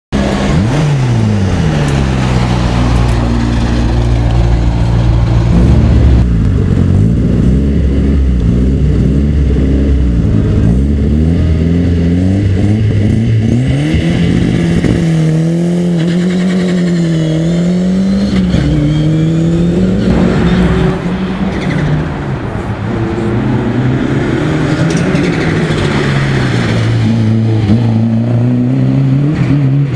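Ford Escort Cosworth rally cars' turbocharged four-cylinder engines revving hard, the pitch rising and falling again and again as they pull away, with rapid popping and crackling from the anti-lag system.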